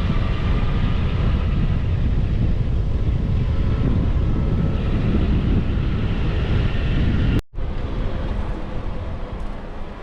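Vehicle driving on a dirt road: a steady, loud low rumble. It cuts out abruptly for a split second past seven seconds, then carries on a little quieter.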